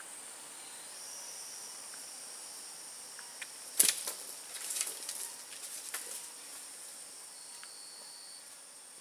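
Forest insects droning steadily in high, even tones. About four seconds in comes a sharp snap, followed by a couple of seconds of rustling in dry leaf litter.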